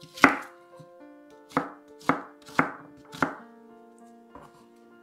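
Chef's knife cutting through a red onion and knocking on a plastic cutting board: five sharp chops, the first and loudest just after the start, then four more about half a second apart, over soft background music.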